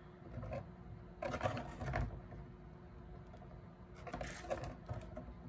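Pink plastic wig stand rings clicking and rattling against each other as they are fitted together by hand, in two short bursts, about a second in and about four seconds in.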